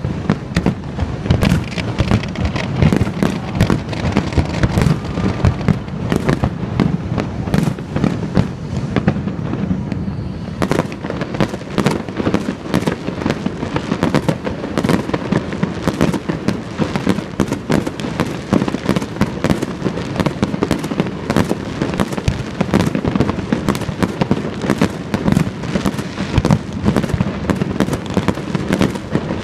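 Fireworks display exploding continuously: a dense barrage of bangs, booms and crackling, overloading a phone microphone.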